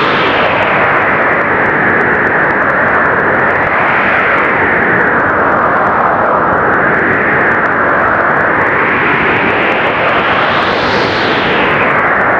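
Blizzard wind blowing hard: a loud, continuous rush that swells and eases in slow gusts, rising highest about four, seven and eleven seconds in.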